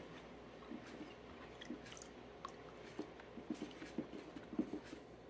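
A metal spoon stirring honey water in a plastic tub: faint wet swishing with soft, irregular clicks of the spoon against the tub, more frequent in the second half.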